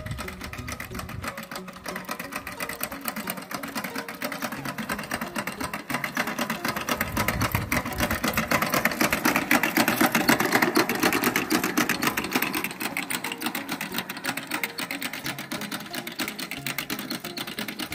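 Hand-pushed maize planter rolling over ploughed soil, its wheel and seed-metering mechanism making a fast, steady clicking clatter that grows louder toward the middle and then eases off.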